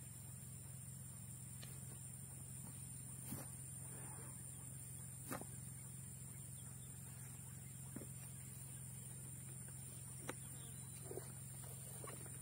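Steady high-pitched chirring of insects in a rice paddy. A few sharp knocks and clicks come from handling rubber boots and a plastic knapsack sprayer.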